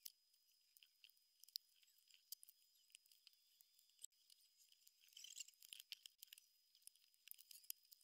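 Faint clicking and light rattling of plastic LEGO pieces being handled and pressed together, most frequent about five seconds in, over a faint steady high-pitched tone.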